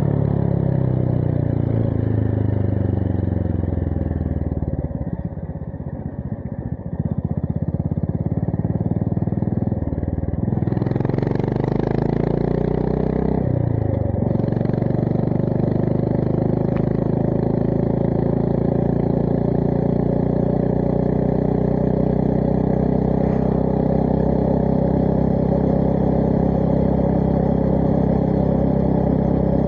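Honda GB350S single-cylinder engine through a MILLER Spitfire slip-on exhaust while riding. The note falls as the throttle is rolled off and drops to a quieter, uneven burble for a few seconds. It picks up again, dips once more, then climbs slowly and steadily through a long pull.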